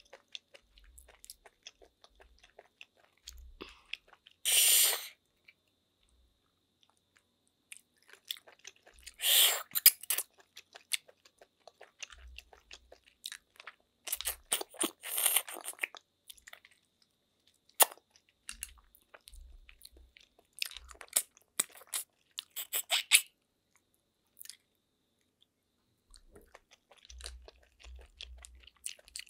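Close-up eating sounds: snail meat sucked out of its shells in loud slurps, about four in all spread several seconds apart, with chewing, crunching and small wet clicks of the mouth in between.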